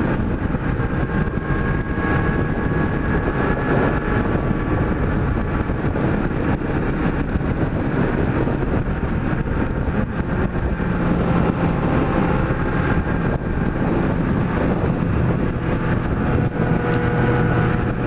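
Kawasaki Z1000's inline-four engine cruising steadily at highway speed, its exhaust running on the pre-muffler box alone with the tail tips removed, under steady wind noise.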